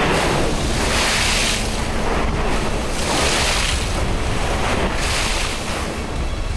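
River water washing over a cargo barge's low deck and splashing up against its side in surges about every two seconds, over a steady low rumble.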